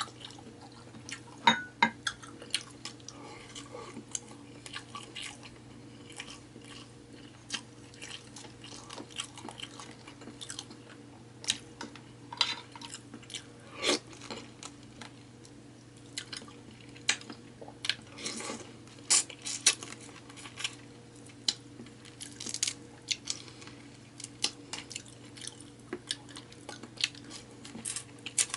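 Close-miked eating of a seafood boil of crab, prawns and mussels: chewing and mouth sounds with many irregular sharp clicks and cracks, over a steady low hum.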